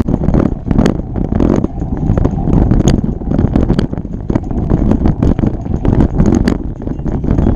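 Wind rumbling on the microphone of a bike riding along a dirt trail, with scattered clicks and knocks as the bike rattles over the ground.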